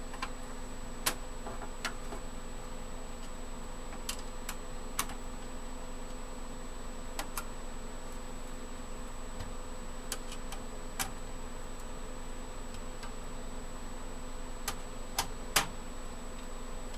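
Scattered light clicks of a screwdriver tightening motherboard screws into a PC case, irregular and a second or more apart, over a steady hum.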